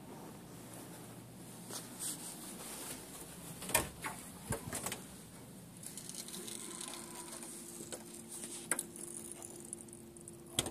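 Scattered clicks and knocks over a faint rustle, the handling and movement noise of a camera carried through a room, with a faint steady hum coming in about six seconds in.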